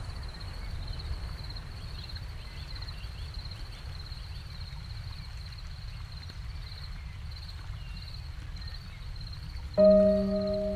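Outdoor nature ambience: a low rumble of wind with a steady, high, pulsing trill and a few faint chirps. Near the end a struck bell-like tone with several overtones rings out suddenly and slowly fades as the music begins.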